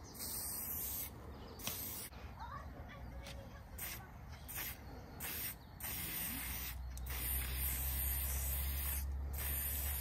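Aerosol spray-paint can hissing in a string of short bursts with brief pauses, then in longer, almost unbroken strokes from about six seconds in as lettering is sprayed. A low steady hum comes in at the same point.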